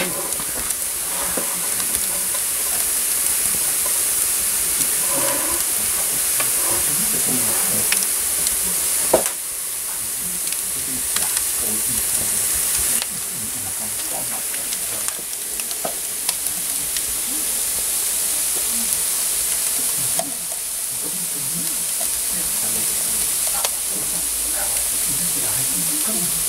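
Socca (chickpea-flour batter) sizzling in its metal pan on the floor of a wood-fired oven: a steady high hiss, with scattered crackles from the burning wood.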